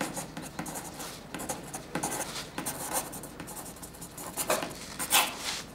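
Pencil writing on paper: a run of irregular scratching strokes of the lead across the sheet, the loudest about five seconds in.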